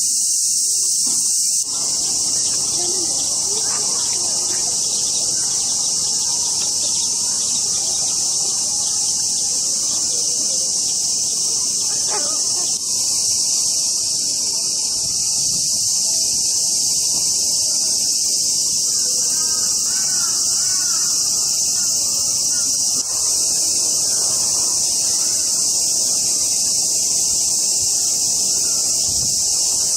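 Loud, steady chorus of cicadas, droning without a break. A short run of bird calls comes about twenty seconds in.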